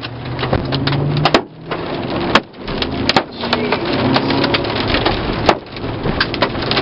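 Hail and rain pelting a Chevy Suburban's body and glass, a dense clatter with scattered louder stone strikes, over the low hum of the running engine.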